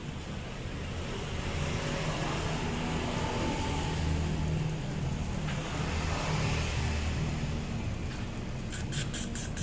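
Honda Vario 125 scooter's single-cylinder engine running, its level rising and easing as if lightly revved. A rapid ticking starts near the end.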